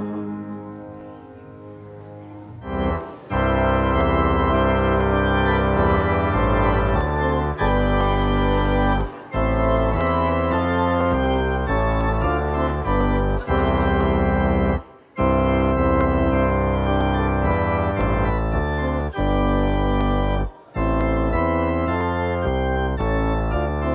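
The hymn's last note dies away, and about three seconds in organ music begins: slow, sustained chords over a low bass line, with short breaks between phrases.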